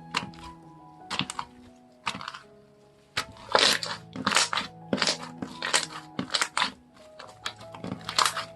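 Slime being pressed and squeezed by hand, giving sharp crackling pops in irregular clusters, busiest in the middle. Soft background music with held notes runs underneath.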